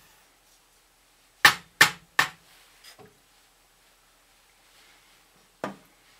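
Sharp knocks of a utensil against a metal canteen cup: three in quick succession about a second and a half in, a softer one a little later, and one more near the end.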